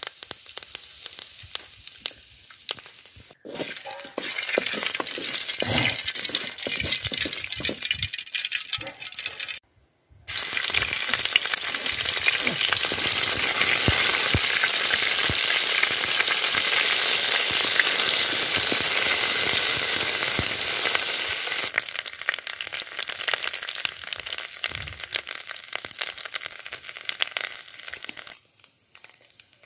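Curry leaves sizzling and spitting in hot oil in a metal kadai, with a wooden spatula stirring and scraping the pan. The sizzle drops out briefly about 10 seconds in, then comes back strong.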